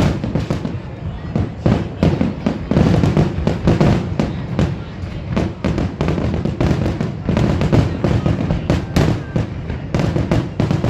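Fireworks finale: a continuous barrage of aerial shell bursts, several booms a second with crackling between them and no let-up.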